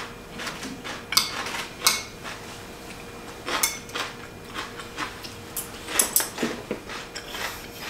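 Chopsticks clicking and scraping against a ceramic bowl as food is picked up, in scattered short sharp clicks.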